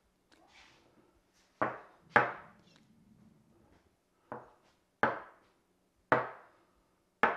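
Ceramic cupping bowls being picked up and set down on a wooden butcher-block counter: six short, sharp knocks at irregular intervals.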